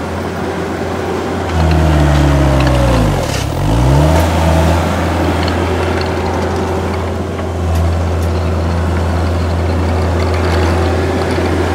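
Diesel engine of a John Deere CT322 compact track loader running hard as it pushes dirt and brush with its bucket; the engine pitch sags and comes back up a couple of times in the first few seconds, then holds steady.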